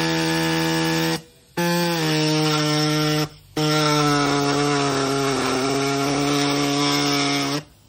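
Pneumatic reciprocating air saw, its blade blunt, cutting through an exhaust pipe. It runs at a steady buzzing pitch in three bursts with two brief pauses, the pitch dipping a little under load in the last burst.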